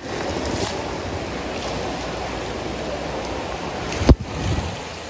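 Steady rushing and sloshing of moving water in an indoor water park pool. About four seconds in, one loud low thump.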